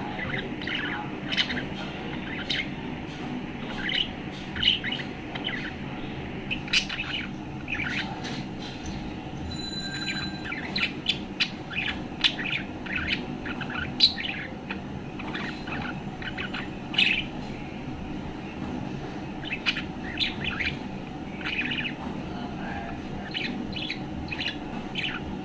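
Budgerigar chirping and warbling in a long string of short, rapid chirps, the cheerful chatter of a contented budgie. A steady low hum runs underneath.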